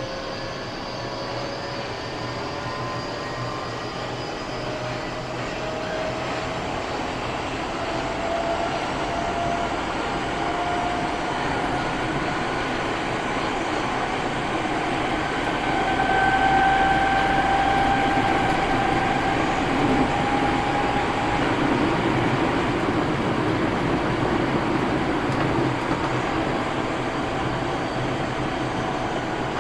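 Running sound inside an Eidan 8000 series train with armature chopper control (car 8201) as it picks up speed. Several whines climb slowly in pitch over most of the stretch and then fade, over a steady rumble of wheels on rail, getting louder about halfway through. This is the so-called "jet sound" of this noisy car, which has an abnormal running noise.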